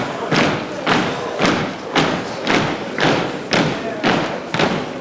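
Pipe band drums beating a steady marching time, about two strokes a second, each stroke ringing briefly in the hall, with the bagpipes silent.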